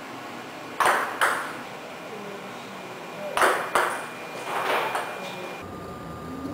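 Table tennis ball clicking off the racket and the table during long serves, in two quick pairs of sharp clicks a few seconds apart, with a fainter knock after the second pair.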